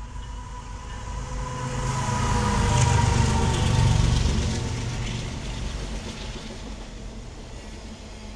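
CSX freight train's diesel locomotives running past close by, their engines' rumble loudest about three to four seconds in with a steady whine that fades as they pass. After that the autorack cars roll by with steady wheel-on-rail noise.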